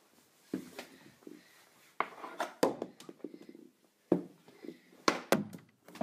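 Plastic mini hockey stick striking a small ball and the hardwood floor: several sharp clacks, most of them in the second half. A child's voice makes short sounds between the hits.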